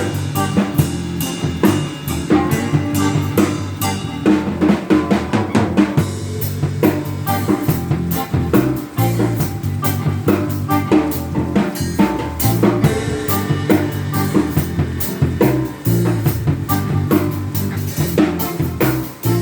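Music led by a drum kit, with a steady beat of kick drum, snare and rimshots over a bass line, played loud without a break.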